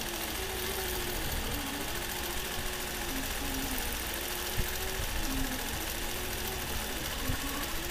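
Nolting Pro longarm quilting machine stitching under IntelliQuilter computer control: a steady motor hum whose pitch rises and falls over and over as the head traces curved arcs.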